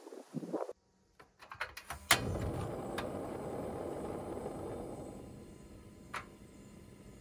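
Iwatani cassette gas stove lit: a few small clicks from the knob, then a sharp igniter click about two seconds in and the burner's steady flame hiss. The hiss grows quieter a few seconds later.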